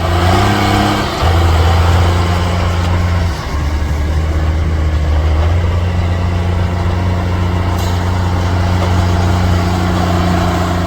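Off-road 4x4 vehicle engine running loudly with a deep, steady note that steps up about a second in, dips briefly after about three seconds, then holds.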